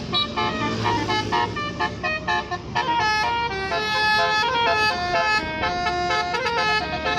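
A bus's basuri telolet musical horn playing a tune: a quick run of short, bright horn notes stepping up and down in pitch, then longer held notes from about three seconds in.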